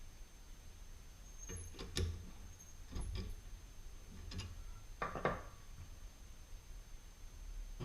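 A handful of separate light knocks and clicks, like tools or parts being handled, over a faint steady high-pitched whine.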